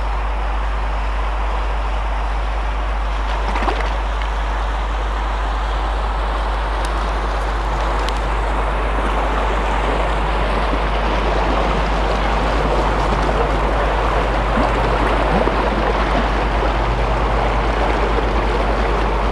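Steady rushing, water-like noise that grows a little louder, joined by a low steady engine hum from about twelve seconds in, as a canal narrowboat approaches and passes.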